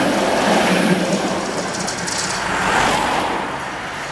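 Tram passing close by, its wheels rolling and rattling on the street-running rails with a low motor hum, fading away after about three seconds as it moves off.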